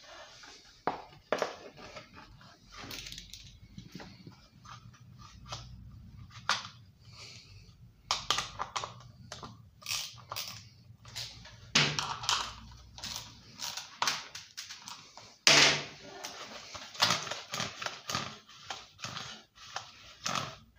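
Hand work on a Subaru lawnmower engine's recoil starter: irregular clicks, knocks and scrapes of a screwdriver against the plastic pulley and starter cover as it is reassembled, with the loudest knock about 15 seconds in.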